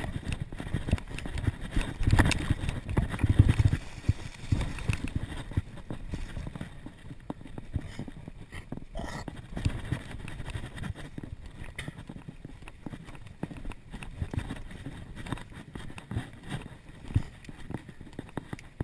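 Mountain bike rattling down a rough dirt trail: a rapid, uneven run of knocks and clatter, loudest in the first four seconds and then settling to a lighter rattle.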